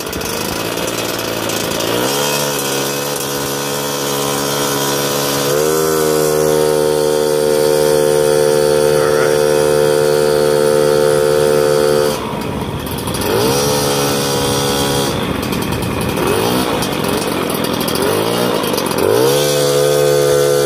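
Small moped engine running under throttle while riding through dirt and mud. The engine note climbs twice early on, holds steady, drops off with the throttle about halfway, wavers up and down, then climbs again near the end.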